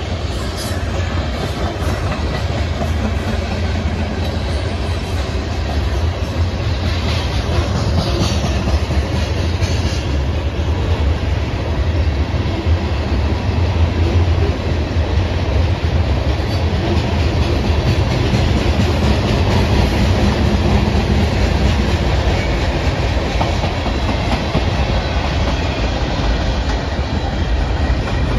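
Cars of a Union Pacific mixed freight train rolling past close by, steel wheels running on the rails in a steady loud rumble.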